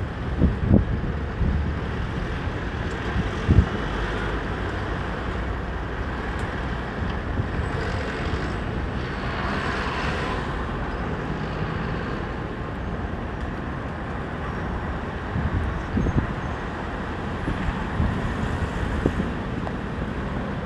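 City street traffic noise: a steady hum of cars and vans at an intersection, swelling in the middle as one vehicle passes close, with a few short low thuds.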